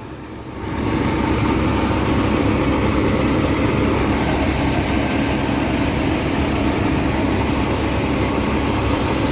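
Heavy diesel farm machinery running with a steady, loud drone that jumps up in level within the first second and then holds.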